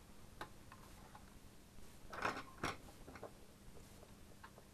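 Faint clicks, taps and rustling from hands handling an LCD monitor's circuit board and ribbon cable connector, with two louder scraping handling sounds a little after two seconds in.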